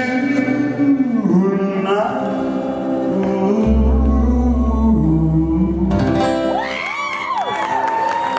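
Male singer and a band with acoustic guitars ending a slow ballad live: the last word, "tonight", is sung and held over the closing chord with a low bass note. Audience whoops and cheering start near the end.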